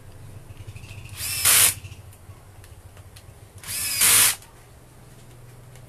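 Cordless drill driver driving screws into a plastic sander housing in two short bursts, about a second in and again about four seconds in, the motor's whine rising in pitch as each starts.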